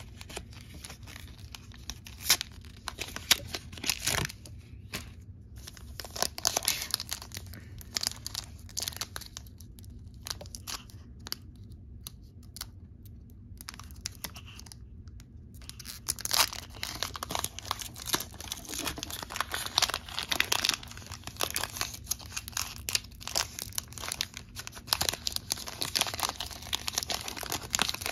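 Crinkling and tearing of a Pokémon TCG booster pack's foil wrapper as it is worked out of its cardboard blister card and torn open by hand: irregular crackles, sparser in the middle and busier in the second half.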